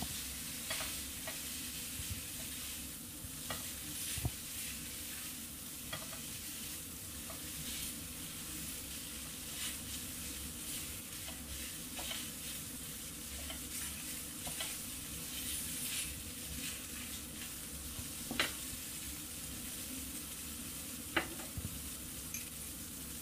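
Spaghetti and shredded king oyster mushroom sizzling steadily in butter and oil in a nonstick pan while a spatula stirs and tosses it, with a few light taps and scrapes of the spatula against the pan.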